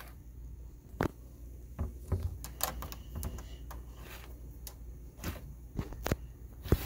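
About ten sharp, irregularly spaced clicks and knocks of RCA cable plugs being handled and pushed into the gold rear-panel jacks of a McIntosh C31V audio/video control center.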